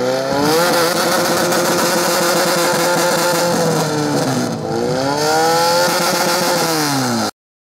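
Portable fire pump's engine revving hard: its pitch climbs and holds high, dips for a moment about halfway and climbs again, then falls near the end before the sound cuts off abruptly.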